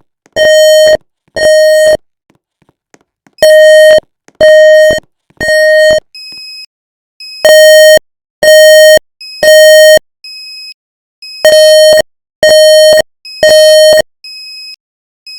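Building fire alarm sounding its evacuation tone: loud beeps in repeating groups of three, a new group about every four seconds. This is the temporal-three pattern that signals everyone to leave the building. Fainter, higher-pitched beeps fall in the pauses between the groups.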